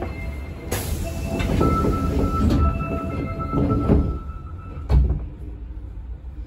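Osaka Metro 21 series subway car heard from inside as it starts off from a station: a rumble with a steady high whine from its Hitachi IGBT VVVF inverter. Several sharp knocks come through, the loudest about five seconds in, after which the sound quietens.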